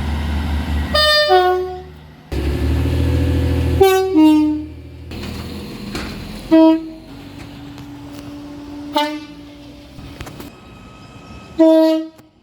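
Train horns sounding a series of short toots, about seven in all, some in quick pairs that step down in pitch. A low rumble runs under the first half.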